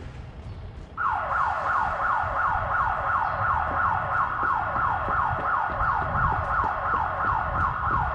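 A siren sounding in quick falling sweeps, about three a second, starting suddenly about a second in, over a low rumble.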